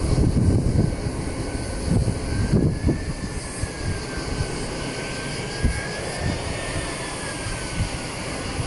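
Twin-engine jet airliner on final approach, its engines running with a thin whine that slowly wavers in pitch over a steady rush, mixed with an uneven low rumble.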